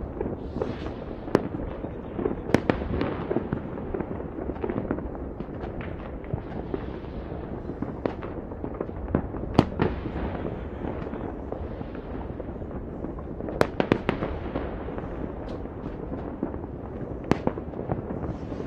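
Many fireworks and firecrackers going off across a city at once: a continuous crackle and rumble of bursts, with a handful of sharper bangs standing out above it.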